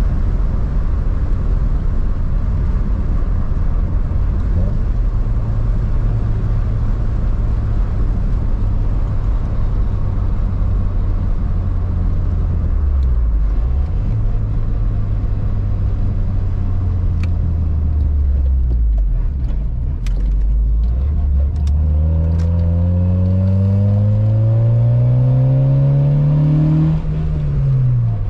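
Honda Civic being driven at speed: a steady engine and road drone, then about three quarters of the way in the engine revs up with a rising note under acceleration. Near the end it dips briefly at a gear change and climbs again.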